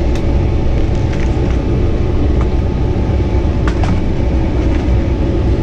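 Lennox gas furnace running, its blower moving air with a steady low rumble and rush of air. A few light clicks can be heard over it.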